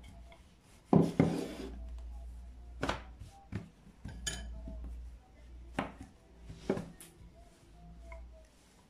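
Wooden rolling pin rolling out soft dough on a floured wooden tabletop, a low rolling rumble broken by several sharp wooden knocks as the pin is put down and picked up again.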